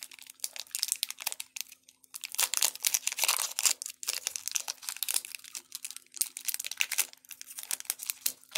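Foil wrapper of a Pokémon trading-card booster pack crinkling and crackling in irregular bursts as it is torn open by hand, with a faint steady hum underneath.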